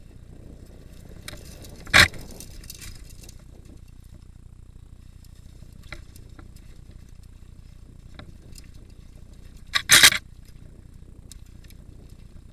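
Mountain bike rolling over a rocky trail: a steady low rumble of tyres and wind, broken by loud rattling clatters as the bike jolts over rock, one about two seconds in and two in quick succession near the end.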